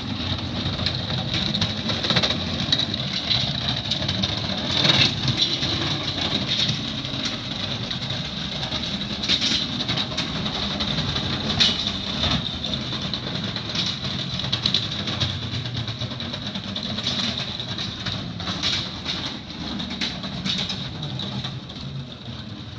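An engine running steadily with a low drone and a high whine, with scattered clicks and knocks.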